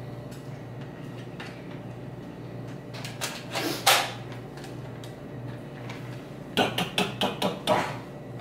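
Clicks and knocks of a plastic-and-metal airsoft rifle being handled: one sharp click about four seconds in, then a quick run of about six clicks near the end.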